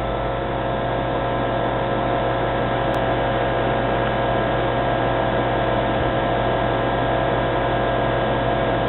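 Steady electrical hum and fan whir of running computer equipment, several steady tones over an even hiss.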